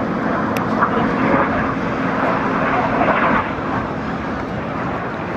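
Jet noise of a BAE Hawk T1 flying past low, a steady rush that eases off a little in the second half as it climbs away. A sharp click about half a second in.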